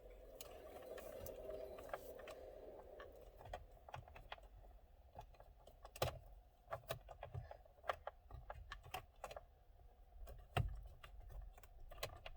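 Faint, irregular clicks and taps of a hand tool twisting and prying inside a stock steering wheel to free the airbag, which is not yet coming loose.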